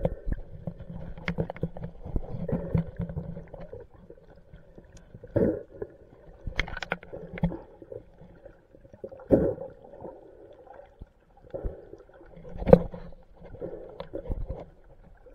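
Muffled underwater sound heard through a camera's waterproof housing: low water rumble broken by irregular knocks and clunks, about six spread through, the loudest near the end, as conch shells are handled into a mesh dive bag.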